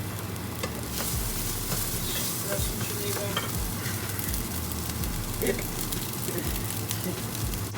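Food frying in a pan with a steady sizzle, a few faint ticks over it.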